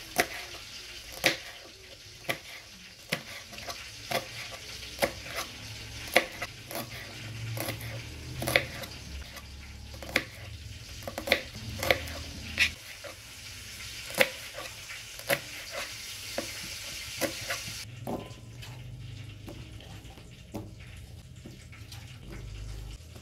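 Kitchen knife chopping green chillies and shallots on a plastic cutting board: single sharp knocks, irregular, roughly once a second. Behind them runs a steady sizzle of chicken frying in oil, which stops abruptly about three-quarters of the way through.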